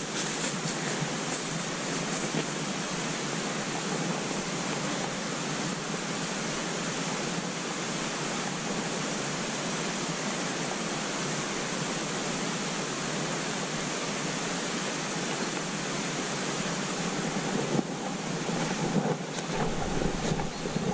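A steady, even rushing noise that does not change, with a few soft bumps near the end.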